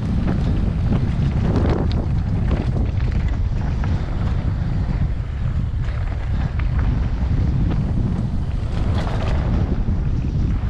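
Mountain bike riding fast down a loose dirt and gravel trail: wind buffeting the microphone over the rumble of the tyres, with scattered clicks and rattles from the bike over rough ground.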